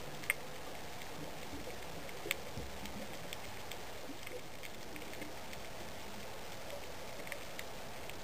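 Underwater reef ambience through the camera's microphone: a steady hiss with scattered sharp clicks and crackles, two louder clicks near the start and a little over two seconds in.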